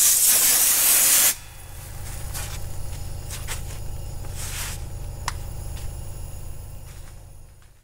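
Sandblaster gun blasting abrasive onto a steel grille panel, a loud hiss that cuts off suddenly about a second in. After it a steady low hum with a few faint clicks remains, fading near the end.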